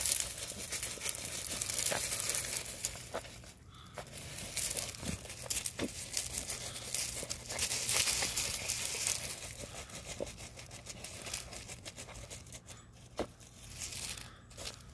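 West Highland White Terrier puppy digging and scratching with its paws in loose gravel and dry twigs: irregular scraping, rustling and clicking of pebbles, with brief lulls about four seconds in and again near the end.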